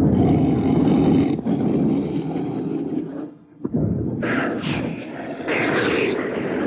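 Kaiju roar sound effect of Degunja, a Tsuburaya Productions monster: a long, rasping roar, a brief break a little after the middle, then a second, harsher roar.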